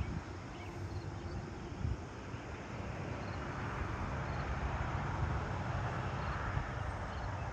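Tyre and engine hiss of a vehicle approaching on a distant road, swelling from about three seconds in, over a low wind rumble on the microphone. A bird gives a short warbling call near the start, and faint insect chirps tick now and then.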